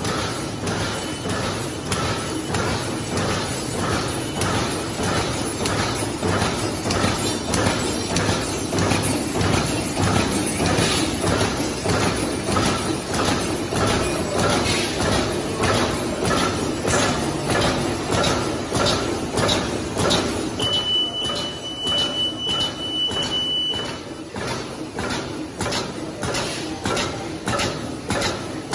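Automatic drawstring bag making machine running, its sealing and cutting heads and pneumatic cylinders clacking in a fast, even rhythm over a continuous mechanical hum. About three-quarters of the way through, a steady high tone sounds for about three seconds.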